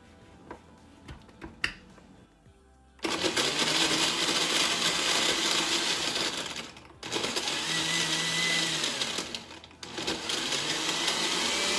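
Oster countertop blender running on a green smoothie with ice cubes, chilling and smoothing it. It switches on about three seconds in and runs in three bursts, stopping briefly twice.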